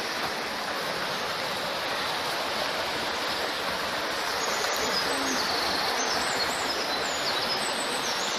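Small mountain stream rushing steadily as it cascades over mossy boulders, with small birds chirping high in the second half.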